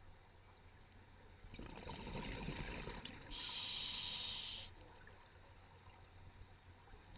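Scuba diver breathing through a regulator, heard underwater. About a second and a half in comes a bubbling exhalation, then for about a second the sharp hiss of an inhalation through the demand valve.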